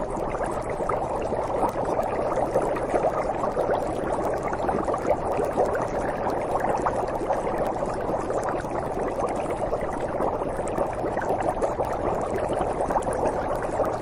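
A steady, dense crackling noise that cuts off suddenly just after the end.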